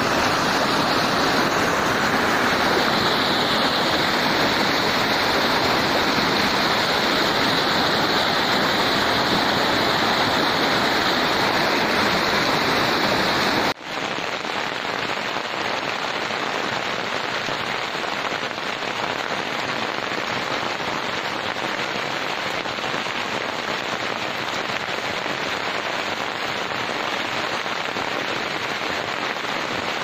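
A small waterfall rushing over rocks, a steady loud noise. About 14 seconds in it cuts abruptly to a slightly quieter, even patter of rain falling on broad vine leaves.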